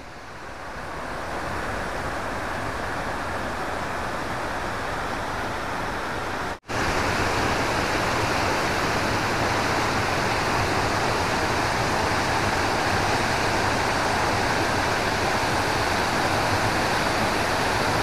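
Steady rush of falling water from a waterfall, an even hiss with no pauses. It builds over the first second or so, breaks off for an instant about six and a half seconds in, and runs a little louder after that.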